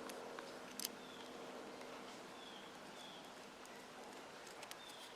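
Faint small clicks of tools and parts being handled while a model glow engine is taken apart, the clearest a quick double click a little under a second in. Short chirps of a bird repeat in the background, over a low steady hum that stops about halfway through.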